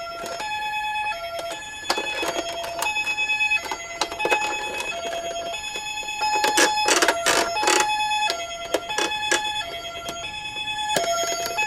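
Toy ambulance minicar's electronic two-tone siren, alternating a high and a low beep, each held about half a second, in the Japanese ambulance 'pee-po' pattern. Sharp plastic clicks and knocks of the toy cars come through it, thickest around the middle.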